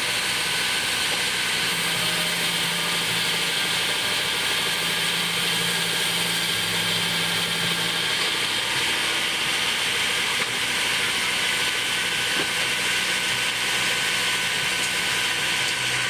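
Band sawmill running steadily, a constant machine hum under a steady high-pitched whine from the blade as the log is fed through.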